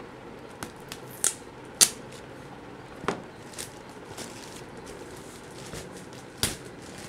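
White plastic courier mailer being slit with a cheap utility cutter and torn open by hand: a handful of sharp crinkling rips, the loudest about two seconds in and another near the end.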